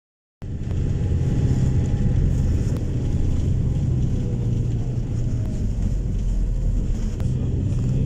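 Steady low rumble of a moving vehicle's engine and tyres on the road, heard from inside its cabin, starting just under half a second in.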